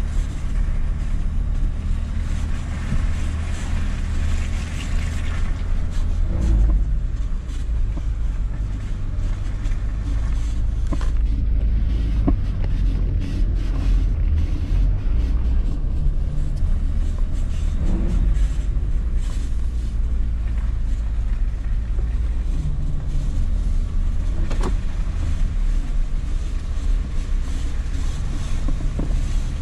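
Two-wheel-drive Sprinter van's engine running as it drives slowly, a steady low rumble heard from inside the cab, with a few brief knocks along the way.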